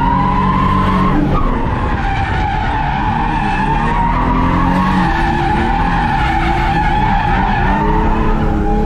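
Stock VS Commodore V6 heard from inside the cabin while drifting: the tyres squeal on a steady high note throughout, over engine revs that rise and fall.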